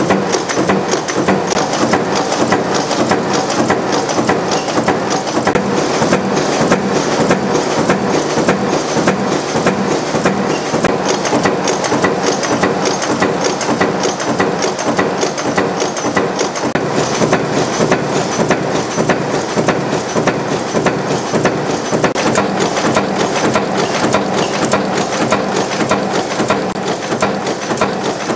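National Machinery 1/4-inch (6 mm) five-station cold nut former running: a loud, steady, fast clatter of repeated forging strokes as steel wire is fed in and pressed into nuts.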